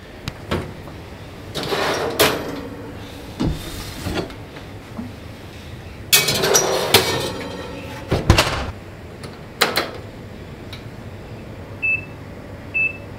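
Oven door and wire rack handled and a cast iron Dutch oven set on the rack, a series of metallic clatters and clunks, the loudest about six to seven seconds in, then the door knocked shut. Near the end, two short beeps from the oven's digital control panel as it is set.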